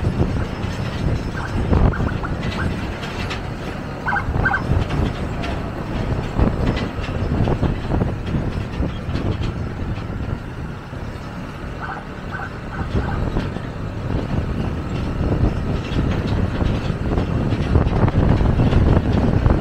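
Steady rumble of road traffic on the move, a heavy vehicle such as a bus among it. A few short high beeps come in small clusters, about a second and a half in, around four seconds in and around twelve seconds in.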